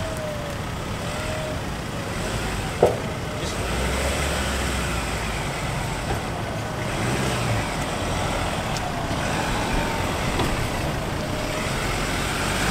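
Ford Ranger pickup's engine running at low revs as it crawls up a rutted, rocky off-road climb, its low drone strengthening under load from about four seconds in. A single sharp knock sounds about three seconds in.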